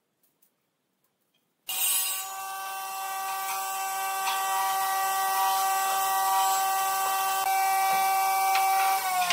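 Woodworking power tool's electric motor running at steady speed, a whine over a hiss. It cuts in suddenly about two seconds in, and the whine begins to fall in pitch at the very end as the tool spins down.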